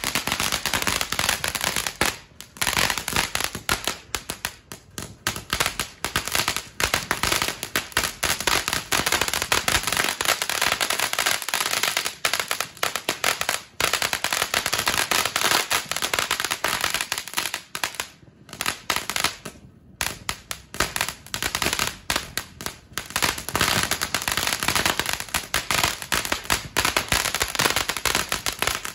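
Ground fountain firework crackling: a dense, rapid stream of small pops, with short lulls about two, five, fourteen and nineteen seconds in.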